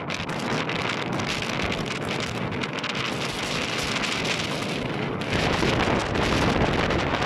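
Wind blowing across the phone's microphone: a steady rushing noise that grows louder, with more low rumble, about five seconds in.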